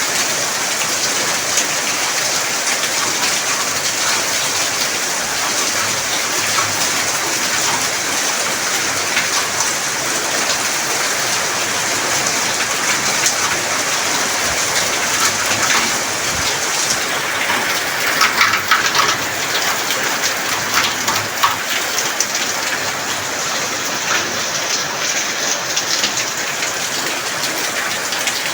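Heavy rain pouring down steadily, growing briefly louder and more splashy about two-thirds of the way through.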